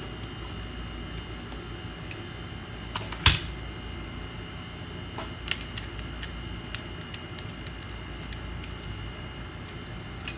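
Scattered light clicks and taps of small tools and parts being handled on a workbench, with one sharper click about three seconds in, over a steady hum and a faint high whine.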